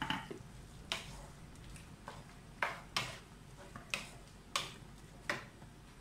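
Wooden spatula stirring vegetables and freshly added ground coconut paste in a nonstick pan: a string of short scraping strokes, about one every three-quarters of a second.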